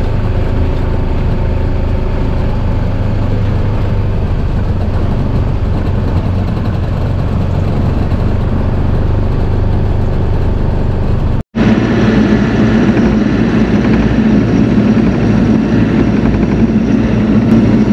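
Bobcat E42 mini excavator's diesel engine running steadily, with a brief cut about two-thirds of the way through before the same running resumes.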